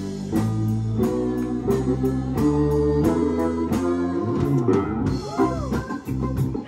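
Live rock band playing: electric guitar lines with bent, gliding notes over bass, drums and keyboard.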